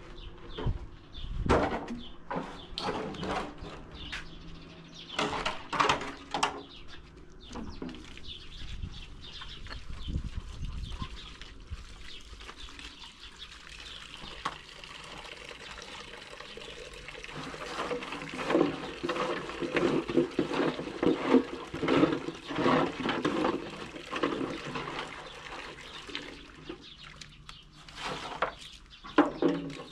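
Water pouring and splashing, with irregular knocks and clatter; busiest in the middle stretch.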